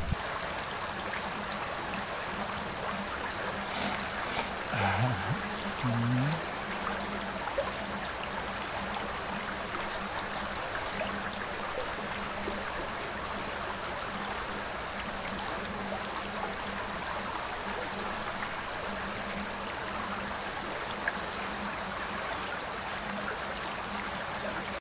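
Steady rushing water noise, even and unbroken, with a couple of short low sounds about five to six seconds in.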